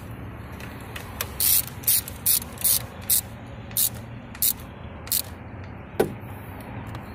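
Ratchet wrench clicking in short bursts, about eight back-swings in four seconds, as a socket on an extension tightens a car battery's terminal clamp nut. A single sharper click comes about six seconds in.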